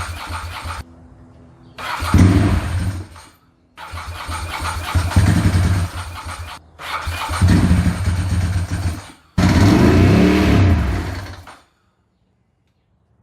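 Ducati 916's 90-degree V-twin being cranked on its electric starter in about five tries of two to three seconds each, sputtering without staying running; the owner puts the failure down to bad gas.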